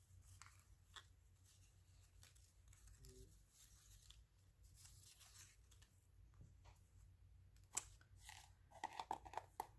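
Faint rustling and handling of paper ephemera, with scattered small ticks and one sharp click near the end, against a quiet room.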